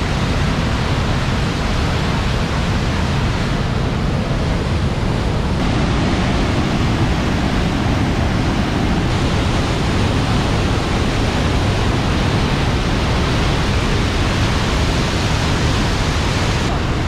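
Silver Falls on the Ohanapecosh River: whitewater pouring over and between granite boulders in a loud, steady rush.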